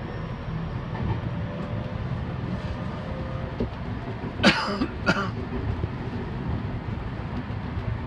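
Electric commuter train running along the track: a steady rumble heard from inside the front car, behind the driver's cab. About halfway through, two short, sharp noises about half a second apart stand out above it.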